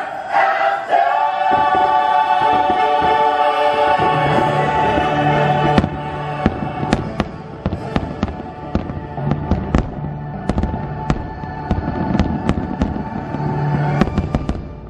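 Fireworks display with choral music: a choir holds a chord for about the first six seconds, then from about six seconds in a rapid string of sharp pops from bursting shells sounds over the music.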